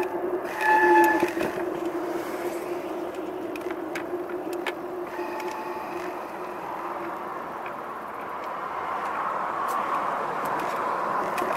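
Road noise during a bicycle ride: a steady hum under a rushing noise that swells near the end, with scattered light clicks and a short, louder tone about a second in.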